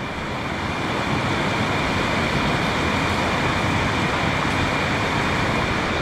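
Rainforest creek cascading over rocks: a steady rush of water.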